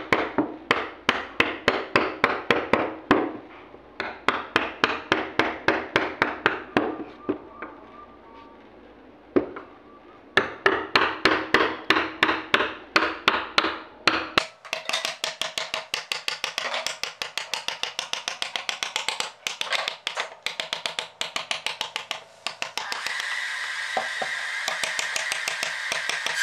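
A wooden mallet tapping a carving chisel into wood in quick, even strikes, about four a second, in runs with short pauses between them.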